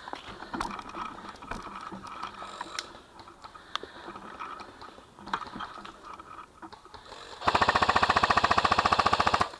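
Airsoft gun firing one fully automatic burst, about fifteen shots a second for about two seconds near the end, loud and close. Before it, only scattered faint clicks and rustling.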